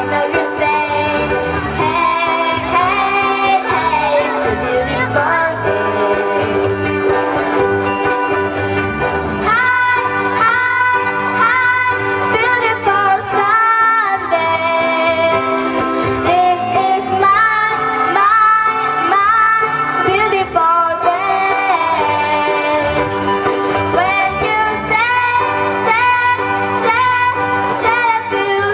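Children singing a song to strummed ukulele accompaniment.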